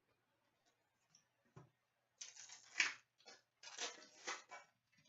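Hockey card pack wrapper and cards being handled: a small tick, then two clusters of short crinkling, rustling bursts as a pack is torn open and its cards are slid out.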